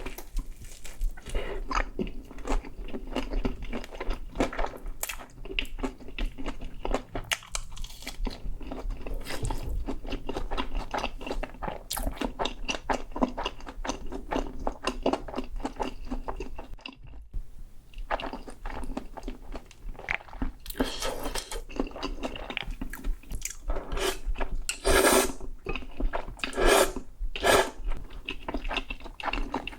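Close-miked eating: a person chewing and crunching crisp food with dense, crackly mouth sounds, pausing briefly about halfway, then several louder crunchy bites near the end.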